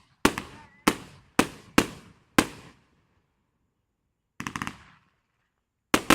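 Fireworks exploding: five loud bangs about half a second apart, each trailing off with a short echo. After a pause comes a quick rattle of smaller pops about four and a half seconds in, then more loud bangs near the end.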